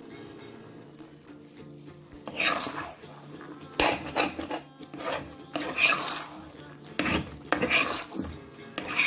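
A metal ladle scraping and stirring thick apple halwa around an iron kadai: a run of irregular scraping strokes that starts a couple of seconds in.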